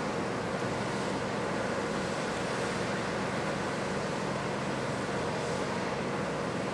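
Steady engine or machine drone with a constant hum, unchanging throughout.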